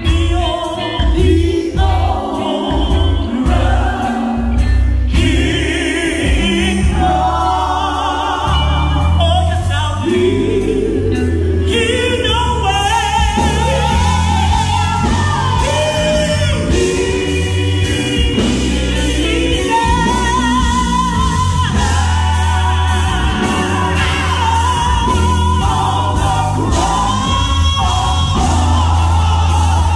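Live gospel singing by a group of women into microphones, backed by electric guitar and bass guitar through a PA, with a heavy bass line underneath. From about halfway through, the lead voice sings long, wavering notes with vibrato over the group.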